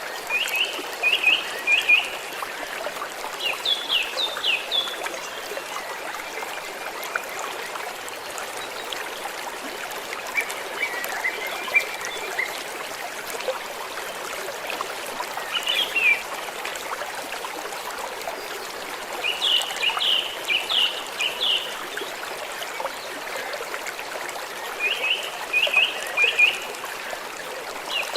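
A small stream of water trickling and running steadily, with a bird calling in quick runs of chirps that come back every few seconds.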